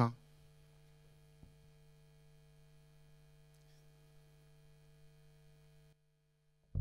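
Near silence with a faint steady electrical mains hum, which cuts to dead silence near the end.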